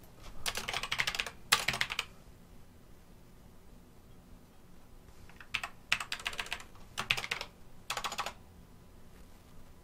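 Typing on a computer keyboard: quick runs of keystrokes near the start, a pause of a few seconds, then several more runs from just past halfway.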